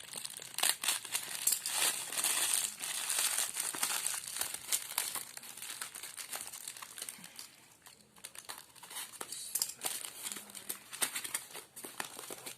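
Parcel packaging crinkling and rustling as it is unwrapped by hand, with many small crackles. It is busiest in the first few seconds, eases off about eight seconds in, then starts again.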